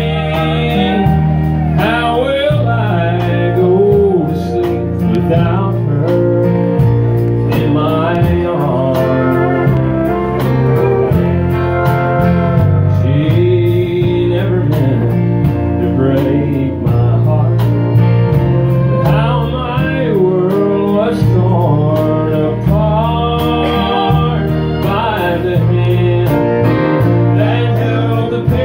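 Live country band playing a slow ballad: strummed acoustic guitars, bass and drums under gliding lead melody lines.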